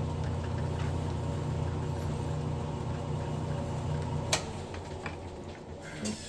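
Metal lathe running steadily while turning a small part, then a sharp click about four seconds in, after which the machine's hum drops away as it winds down.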